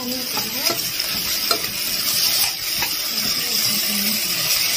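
Onions, green chillies and whole spices sizzling in an aluminium pressure cooker while a steel spoon stirs them. A few clicks of the spoon against the pot sound over the steady sizzle.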